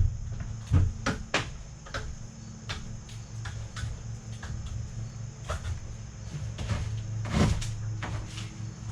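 Irregular knocks and clatter from building work, with one louder knock about seven and a half seconds in, over a steady low hum.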